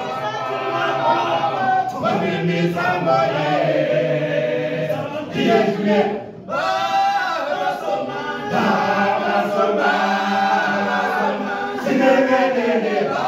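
Male choir singing a cappella in the isicathamiya style, with a short break about six seconds in.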